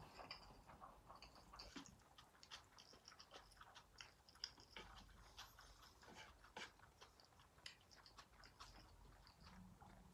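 Faint close-miked chewing of a mouthful of yakisoba noodles, with many soft, short wet mouth clicks.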